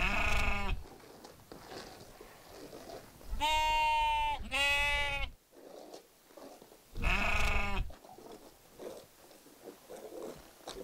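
Sheep bleating: four loud, wavering bleats of under a second each, two of them close together in the middle.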